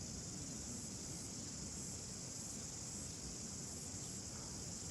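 Steady high-pitched insect chorus, an unbroken shrill drone, over faint low background rumble.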